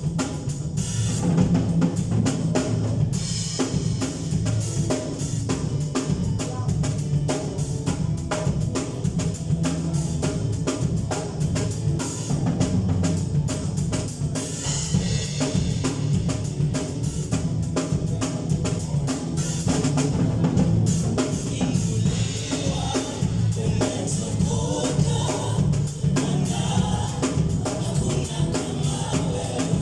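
Live gospel worship music from a band, with a drum kit keeping a steady beat under singing.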